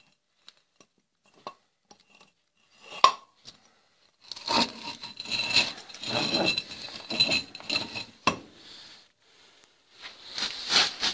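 Steel winch parts (a shaft, a drum and wire cable) being handled on a concrete floor: scattered clicks, a sharp metal knock about three seconds in, then several seconds of clinking, rattling and scraping metal with a ringing note, another sharp knock, and more clatter near the end.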